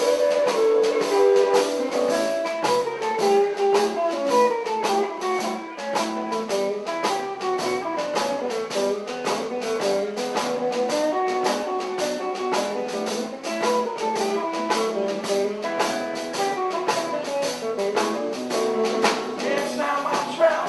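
Blues guitar played live: quick runs of single notes climbing and falling, over a steady beat.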